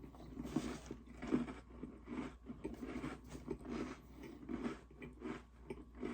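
A person chewing Oreo cookies close to the microphone: quick, even chews, two or three a second.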